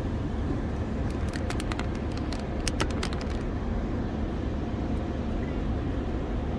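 Steady low rumble of an automatic car wash tunnel heard from inside the car, with a faint steady hum and a scatter of sharp ticks on the car's body about one to three seconds in.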